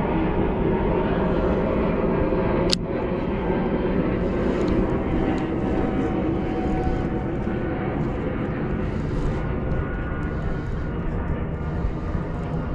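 Steady engine drone with several held tones over a low rumble, slowly fading, and a single sharp click about three seconds in.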